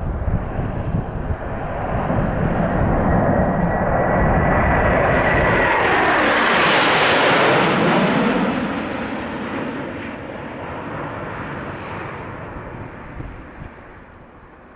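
Formation of jet aircraft flying past: the jet roar builds over several seconds with a thin high whine. It peaks about seven seconds in, its pitch dropping as the jets go by, then fades away.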